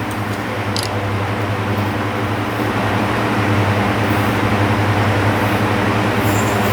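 A steady mechanical drone: a low hum over a rushing noise, growing slightly louder as it goes.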